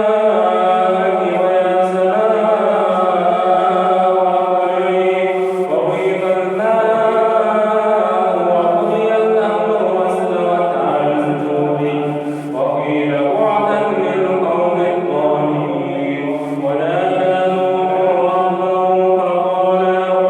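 Man's voice chanting Quranic verses in the melodic tajweed style, holding long, slowly gliding notes with only brief breaks for breath.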